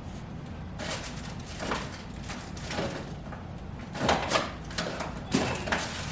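Frozen food packages being packed into a freezer: a string of knocks and clatters, with the loudest pair about four seconds in and another near the end.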